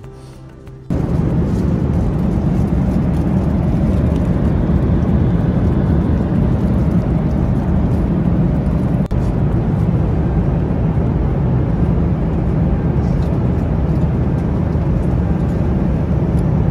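Steady low roar of an airliner cabin: engine and airflow noise heard from a passenger seat. It starts suddenly about a second in.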